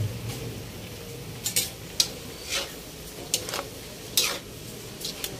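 Metal ladle scraping and clinking against a wok while rice noodles and cabbage are tossed in a stir-fry, over a faint steady sizzle; about nine sharp, irregular scrapes, most of them after the first second.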